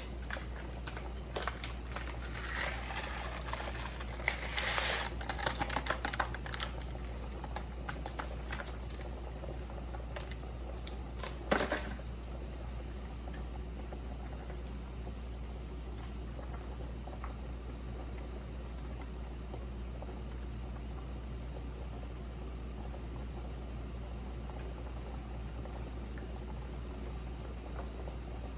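A pot of dirty rice cooking on the stove: water and utensils clatter and splash for the first several seconds, a single knock comes about eleven seconds in, and then the pot simmers steadily over a low hum.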